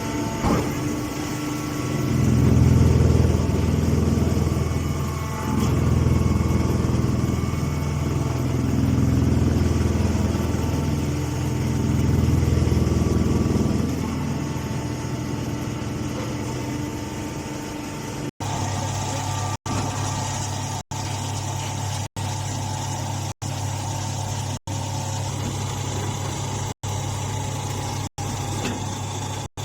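Small hay baler running with a steady low mechanical hum that swells four times, about every three to four seconds, in the first half. In the second half the hum is steadier, and the sound drops out briefly about every second and a quarter.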